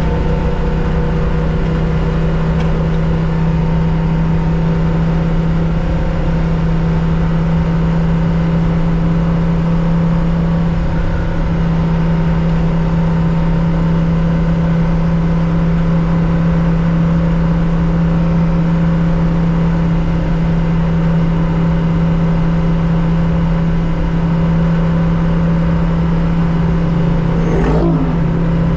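Onboard sound of a 1965 Porsche 911 2.0's air-cooled flat-six racing at steady revs, its note holding almost unchanged, with a short dip in the note near the end.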